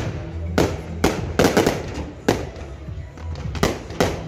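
Fireworks display: aerial shells bursting, about eight sharp bangs with echoing tails. Several come close together about a second and a half in, and two more near the end.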